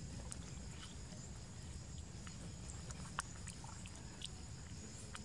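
A young long-tailed macaque eating fruit close up: scattered, irregular clicks and smacks of its chewing mouth.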